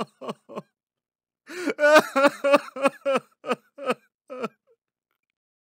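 A woman laughing in short rhythmic "ha" pulses: a few at first, then after a pause a longer run of about ten that stops near the end.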